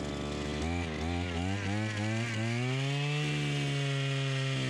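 Eskimo 33cc two-stroke gas ice auger drilling a hole in lake ice. The engine's revs rise and dip several times, then hold steady and high through the second half as the bit bores in.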